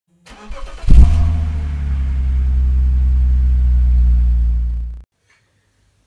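Car engine starting: a brief crank, then the engine catches about a second in with a loud flare and runs steadily before cutting off suddenly about five seconds in.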